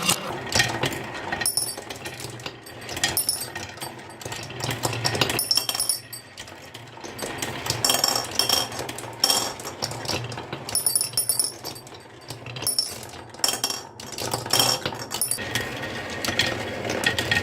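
Many marbles rolling and clattering down a wooden marble run: a dense stream of clicks and knocks, with bright clinks at times.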